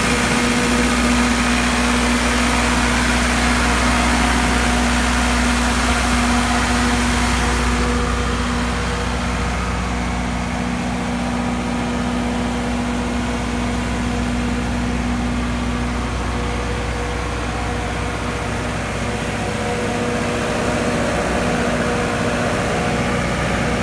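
Cummins four-cylinder diesel engine of a 60 kW standby generator running steadily at constant speed: a low drone with a steady hum. It is heard first at the open engine-compartment door, then duller through the closed sound-attenuating enclosure, the high hiss dropping away about eight seconds in.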